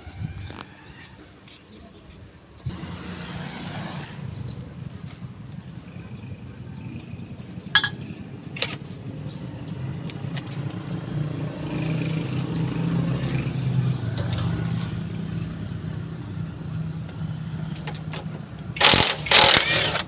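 A motor vehicle's engine running nearby: a steady low hum that starts about three seconds in, swells, then eases off. Two sharp metallic clicks come near the middle, and a loud, harsh noisy burst comes near the end.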